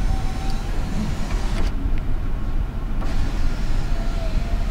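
Power window motor and regulator in a 2002 Chevrolet Avalanche door running with a steady whine as it lowers the glass, stopping about a second and a half in. It starts again about three seconds in to raise the glass. The newly fitted assembly is working fine.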